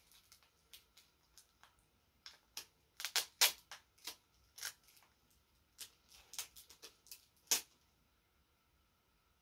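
Paper sticker sheet crackling and crinkling in the hands as butterfly stickers are peeled off it: irregular sharp crackles, loudest in a cluster about three seconds in and again at about seven and a half seconds.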